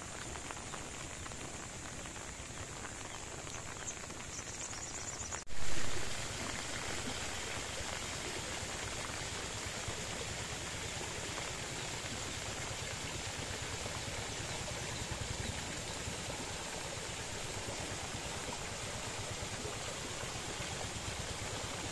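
Steady rushing of water, an even hiss with no distinct drops or strokes. About five seconds in it breaks off abruptly and resumes a little louder after a brief swell.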